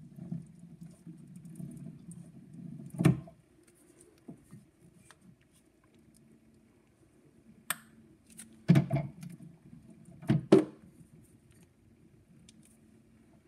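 Faint steady low hum of an Edison Diamond Disc phonograph's spring motor running as its gear is oiled, with a few sharp clicks and knocks from the oiler and mechanism being handled, two of them close together near the end.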